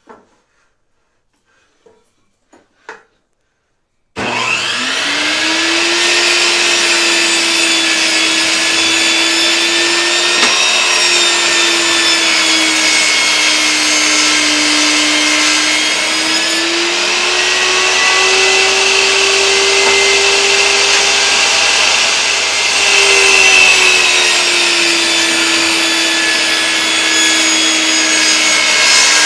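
A few light knocks of boards being handled, then a benchtop table saw switched on about four seconds in: the motor spins up with a rising whine and runs steadily. Its pitch dips and recovers several times as boards are fed through the blade in rip cuts.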